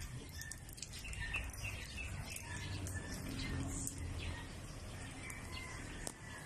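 Small birds chirping in the background, short high chirps every second or so, over a low rumble.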